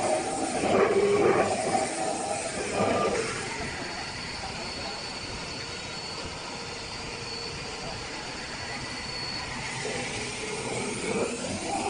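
CNC metal spinning machine forming a sheet-metal tulip table base: the forming roller presses on the spinning blank with a steady mechanical hiss, louder over the first few seconds. A thin high squeal holds steady for several seconds in the middle.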